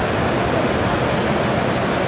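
Steady background noise of a busy exhibition hall: indistinct crowd chatter and general hubbub.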